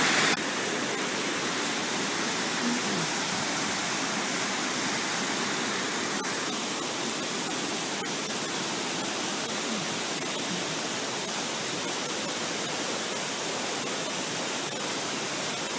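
Steady rush of a large waterfall heard from high above its gorge, an even noise with no break.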